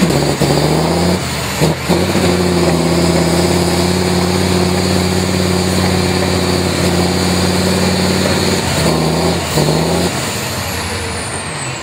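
Tatra truck-trial truck's diesel engine pulling under load as the truck crawls across a steep slope. It holds steady revs for several seconds, with brief dips and rises in revs near the start and again near the end, then eases off. One sharp knock comes about two seconds in.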